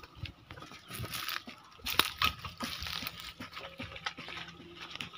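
A dog digging with its front paws in dry soil and leaf litter: irregular scraping and crunching strokes, with one sharper scrape about two seconds in.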